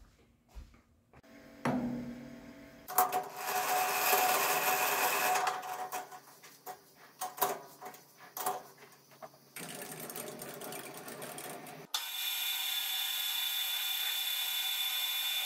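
Metal clanks and sharp clicks as a three-jaw lathe chuck is worked with a chuck key, then a metal lathe running steadily with a high whine as its cutting tool turns a metal bar in the last few seconds.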